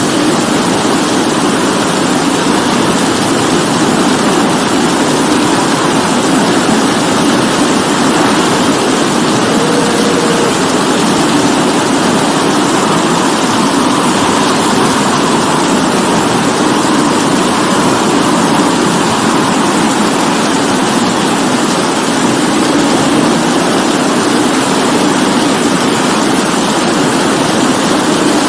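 Steady rain falling: a loud, even hiss that never lets up.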